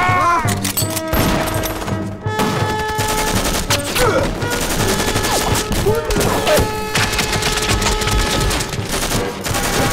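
Gunfire, many shots in quick succession, under a dramatic music score, with a man crying out near the start.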